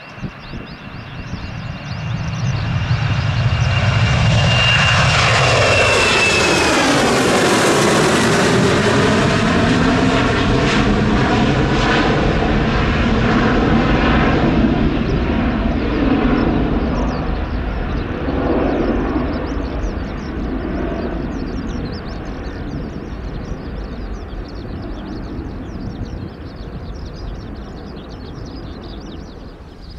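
Jet airliner passing close by. Its engine whine drops in pitch about six seconds in, and the jet noise swells to a loud peak before slowly fading away.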